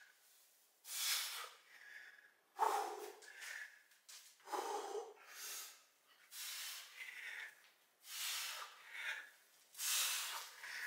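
A person breathing hard from exertion while working with a kettlebell: a string of sharp exhales about one to two seconds apart, a few of them fuller.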